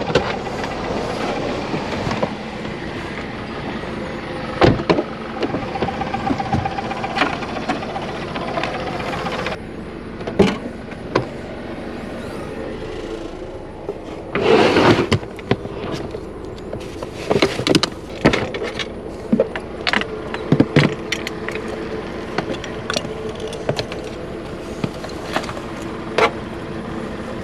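Steady road noise of a car driving. From about ten seconds in it changes to a quieter background with scattered knocks and clicks.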